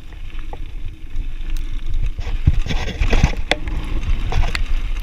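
Mountain bike rolling fast down a loose gravel trail: a steady low rumble of tyres on stones and air over the camera microphone. From about two seconds in, sharp clicks and knocks come thick and fast as the bike clatters over rough ground.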